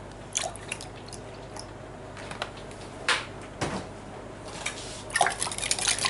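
Milk poured from a plastic bottle into a glass jug of cracked eggs, with a few bumps and knocks. From about five seconds in, a wire whisk beats the eggs and milk, clinking rapidly against the glass jug.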